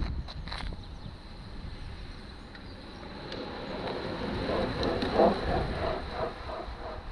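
Wind buffeting the microphone, then the whir of time-trial bicycles with disc rear wheels, tyres on asphalt, growing louder as a group of riders sweeps past in the second half.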